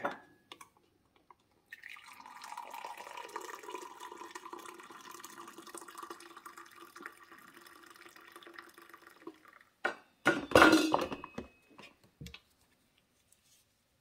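Hot coffee poured from a stainless steel thermal carafe into a glass mug: a steady pour lasting about eight seconds. A few knocks and clinks follow it.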